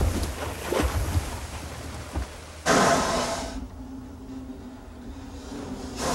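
Logs splashing into a log pond, the water crashing and churning and then dying down. About three seconds in, a sudden loud hiss starts with a steady hum under it and slowly thins out.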